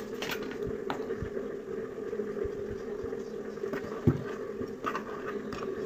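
A few light clicks of a metal spoon against a small ceramic bowl as a thick soy-sauce marinade is stirred, over a steady low hum.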